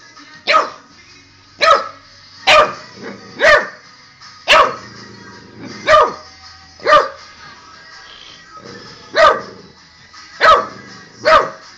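Olde English Bulldogge puppy barking: about ten sharp barks, mostly a second apart, with a longer pause about two-thirds of the way through. Faint TV music plays underneath.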